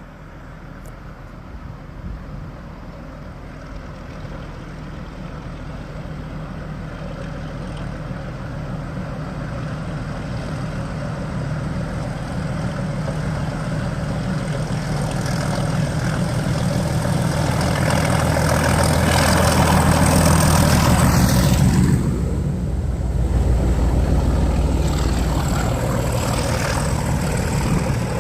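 Class 31 diesel-electric locomotive's English Electric V12 engine working as it approaches, growing steadily louder for about twenty seconds. It drops off suddenly as it passes, then keeps running at a lower level.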